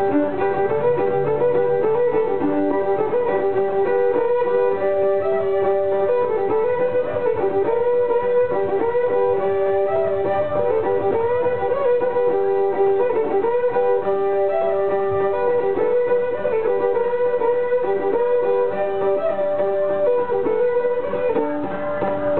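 A Cajun fiddle tune, bowed continuously, while a second player beats the rhythm on the fiddle's strings with a pair of fiddlesticks (straws). A plucked string accompaniment plays underneath.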